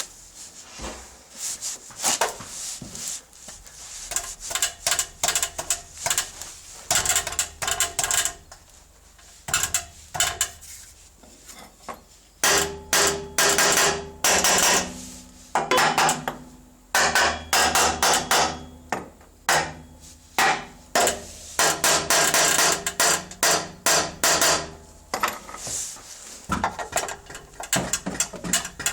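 BMW E46 exhaust rattling: irregular bursts of metallic clattering over a low engine hum, getting louder and more frequent about halfway through.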